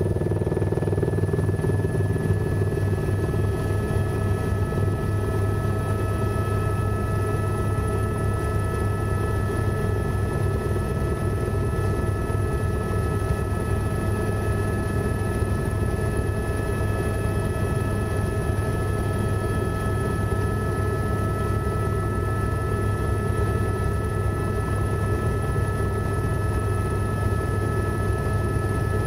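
Tour helicopter in flight, heard from inside the cabin: a steady rapid low rotor beat with a constant high whine over it.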